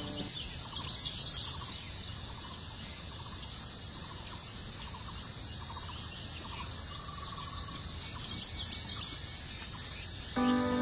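Outdoor nature sound: a steady high insect trill with small birds giving thin, high chirps in a quick cluster about a second in and again near the end, and faint short notes repeating about once a second.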